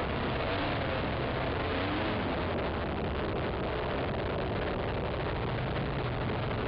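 A racing quad's (ATV) engine running under throttle along a dirt trail, heard from a camera mounted on the machine, its pitch wavering up and down as the revs change, under a steady rushing noise.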